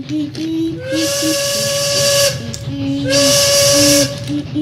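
Two long blasts of a steam train whistle, each a steady tone with a breathy hiss, the first about a second in and the second near the three-second mark, the second briefly louder. A background music melody plays under them.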